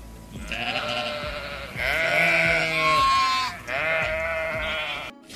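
A sheep bleating three long, wavering bleats one after another, the middle one the loudest.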